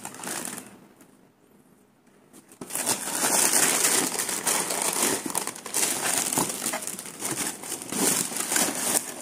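Tissue wrapping paper crinkling and rustling as a sneaker is uncovered and lifted out of its shoebox. After a short quiet pause, it starts about three seconds in and goes on without a break.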